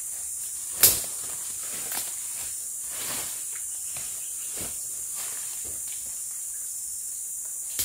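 Steady high-pitched drone of rainforest insects, with a sharp loud click about a second in, a smaller one shortly after and another near the end, and a few soft rustles of brush.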